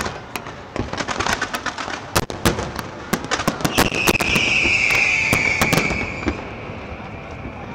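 Aerial fireworks going off in a rapid barrage of sharp bangs and shell bursts. From about four seconds in, a high sustained hiss-like whistle rises over the bangs and fades out after a couple of seconds.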